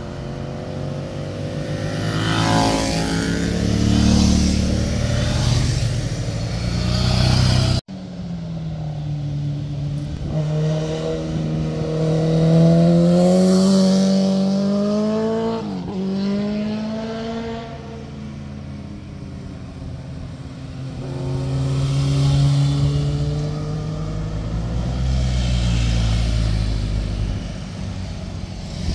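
Motorcycles passing one after another through a tight bend, their engines revving and rising and falling in pitch as they pass. The sound breaks off sharply about eight seconds in. The loudest pass follows, its engine pitch dipping and then climbing again a little after halfway.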